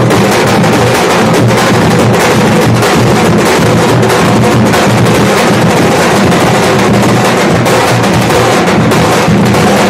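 Nashik dhol troupe: several large double-headed dhol drums beaten with sticks in a loud, dense, driving rhythm.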